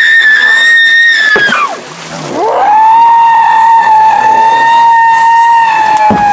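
A woman screaming twice, long and high-pitched. Each scream swoops up at the start and falls away at the end; the second, lower and longer, begins about two and a half seconds in.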